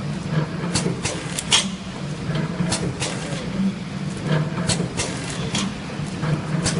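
Automatic sachet water filling and packing machine running: a steady low hum with sharp mechanical clicks at uneven intervals.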